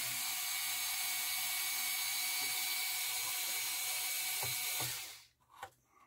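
Cordless electric screwdriver running steadily, backing a mounting screw out of the turntable's motor plate. It stops about five seconds in.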